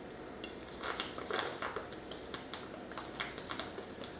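Soda being chugged straight from a 2-liter plastic bottle: quiet gulps and irregular clicks and crackles of the thin plastic bottle as it dents in under the suction.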